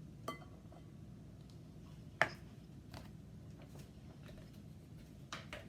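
A few light clicks and knocks from kitchen items being handled: the loudest a little over two seconds in, a double click near the end, over a low steady room hum.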